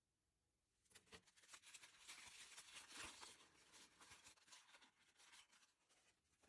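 Faint handling noise: a run of small clicks and scratchy scraping that starts about a second in and dies away near the end.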